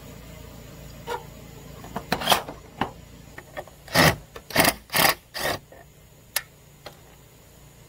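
Cordless drill driving a screw through a perforated metal gutter guard into the gutter lip, run in a series of short bursts. The five loudest come between about two and a half and five and a half seconds in.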